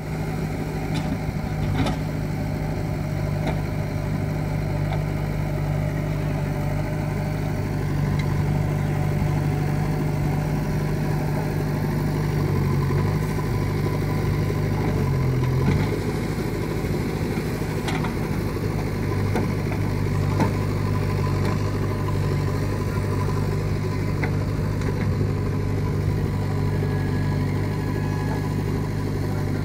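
JCB backhoe loader's diesel engine running steadily while the backhoe digs and loads soil. The engine note dips briefly around the middle, and there are a few light knocks.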